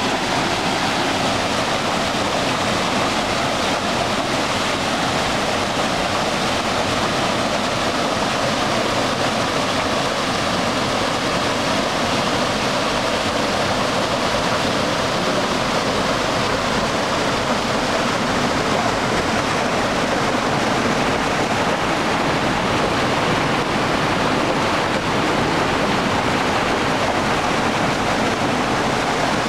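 Mountain stream cascading in a small waterfall between boulders: a loud, steady, unbroken rush of water.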